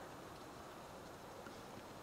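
Quiet, steady background hiss with a few faint ticks scattered through it.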